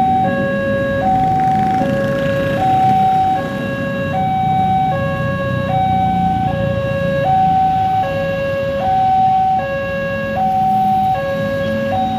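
Railway level-crossing warning alarm sounding its two-tone electronic signal, a higher and a lower note alternating evenly, each held just under a second, warning that a train is approaching. Motorcycle and car traffic runs underneath.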